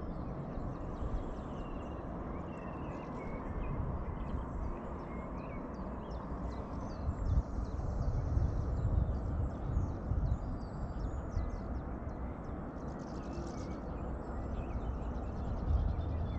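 Wind rumbling and gusting on the microphone, with small birds chirping and singing in the background.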